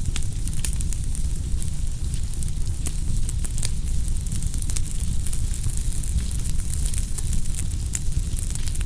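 Wood fire burning with frequent, irregular sharp crackles and pops over a steady low rumble.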